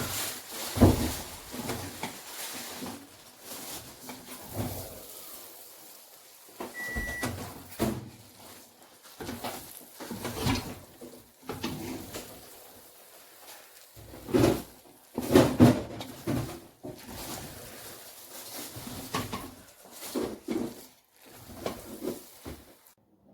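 Irregular knocks, clatters and rustles of household objects being handled, with a single short electronic beep about seven seconds in.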